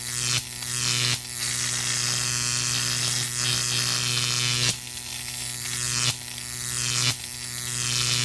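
High-voltage electricity sound effect: a steady electric hum with a hissing crackle. The crackle surges suddenly about five times, irregularly, then settles back.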